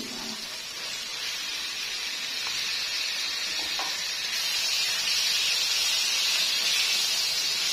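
Marinated chicken pieces sizzling in hot oil with onions in a wok: a steady hiss that grows louder about halfway through.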